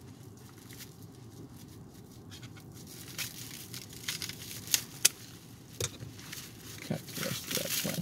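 Clear plastic wrapping crinkling as it is handled and peeled off, with a few sharp crackles around the middle.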